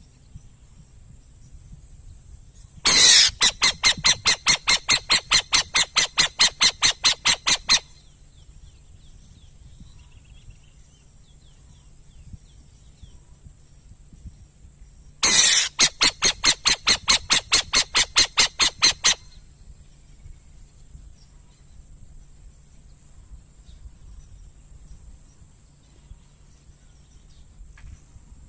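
An owl calling in two loud bouts of rapid, harsh pulsed notes, about six a second, each lasting four to five seconds, with a long pause between them.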